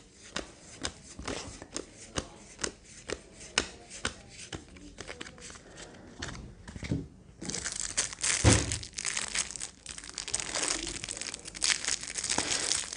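Stiff board-game cards flicked through one after another, making a quick run of sharp clicks. About seven seconds in, this gives way to the plastic shrink-wrap of a card deck crinkling and tearing as it is ripped open.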